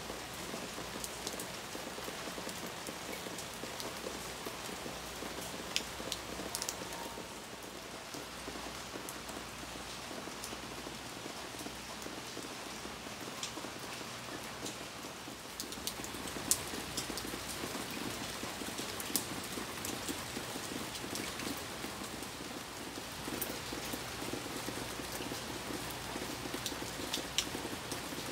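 Steady rain falling on a wooden deck and leafy foliage, with sharp close drips now and then; the rain gets a little heavier just past the middle.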